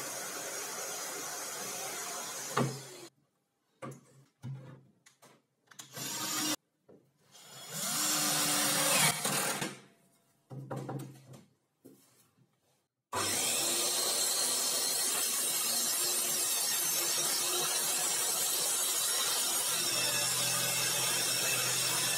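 Parma circular saw running with a steady whirring noise, cut off after a few seconds. Then come short knocks, clicks and scraping handling sounds with quiet gaps between them. About halfway through, the steady running noise starts again abruptly, louder, and holds.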